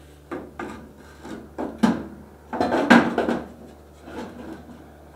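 A small CSF King Cooler radiator being handled and test-fitted inside a car's front wheel well: irregular scraping, rubbing and knocks as it shifts against the bodywork, the loudest about three seconds in.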